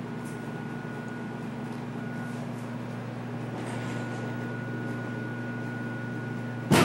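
Steady low electrical hum with a thin high whine, as of workshop equipment, and a single sharp knock near the end.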